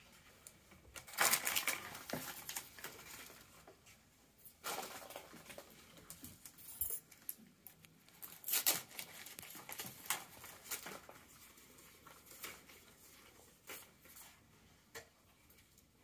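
Plastic candy wrappers and paper gift bags crinkling and rustling in irregular bursts as they are handled, loudest about a second in and again past the halfway point.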